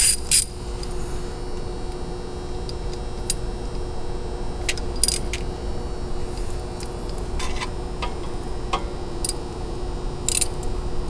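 Hand tools clinking against metal on a Duramax diesel engine while the glow plug wire nuts are worked loose: scattered sharp metallic clicks and clinks over a steady low hum.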